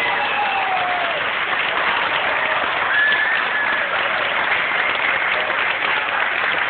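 Audience applauding steadily, with a few high cheers held over the clapping.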